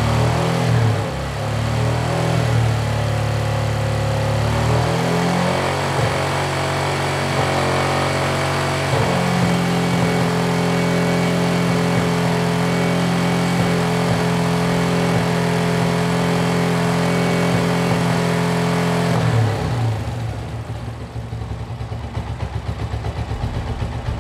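Motorcycle engine revved to around 5000 RPM and held there for a charging-system voltage test. The revs climb in steps over the first several seconds, hold steady, then drop back to idle about twenty seconds in.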